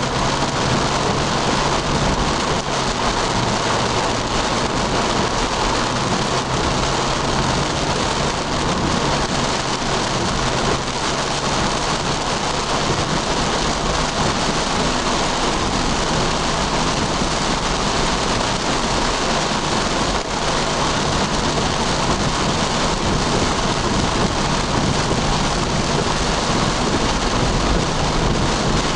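Heavy rain falling steadily on a car's roof and windshield, heard from inside the cabin, with a low steady hum underneath.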